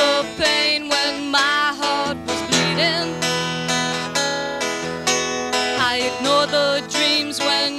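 A woman singing a slow love song into a microphone over instrumental accompaniment.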